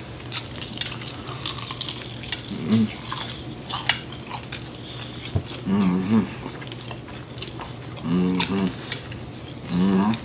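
People eating fried chicken wings: chewing and mouth sounds with scattered clicks and taps of food containers and utensils, broken by a few short vocal hums.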